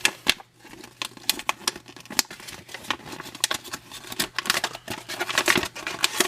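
A thick paper instruction manual being handled and leafed through: a quick run of crisp paper rustles and sharp clicks.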